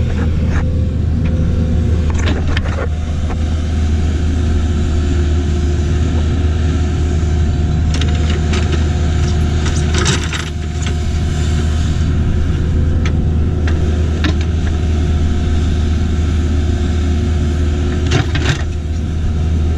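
John Deere 310SJ backhoe's diesel engine running steadily under digging load, with occasional short clanks and knocks from the bucket and arm working the soil.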